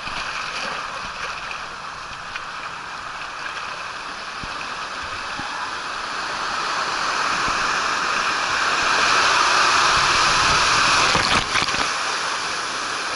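Water rushing through the Tornado water slide as a steady hiss that grows louder past the middle, with a brief sharp sound about eleven and a half seconds in.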